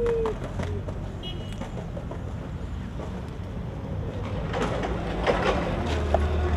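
Street ambience: traffic noise with a low engine hum that grows stronger near the end, and a few light knocks a little past the middle.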